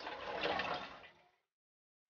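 A steady rushing, water-like noise that fades out about a second in, followed by dead silence.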